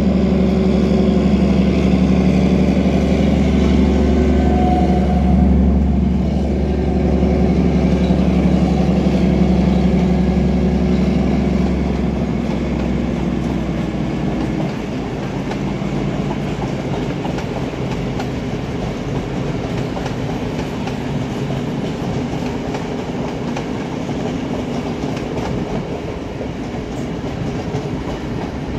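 Two MÁV class M41 (418) diesel-hydraulic locomotives working in tandem at the head of a passenger train. Their engines make a loud, steady drone for the first dozen seconds or so, then fade as they pull away, leaving the rattling clickety-clack of the coaches' wheels rolling past over the rail joints.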